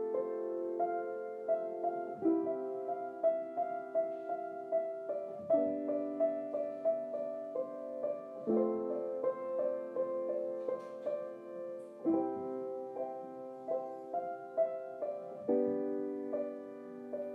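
Piano music: sustained chords that change about every three seconds, with single melody notes over them.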